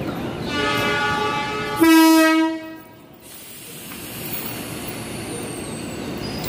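Electric commuter train's horn, on an ex-Tokyo Metro 5000 series set, sounding as it gets ready to leave. A softer sustained tone comes first, then a short, loud blast about two seconds in. A quieter steady hiss follows.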